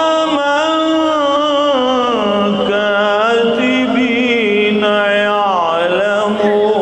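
A man reciting the Quran in the melodic tajwid style: one long phrase of held, ornamented notes that wave and slide up and down in pitch.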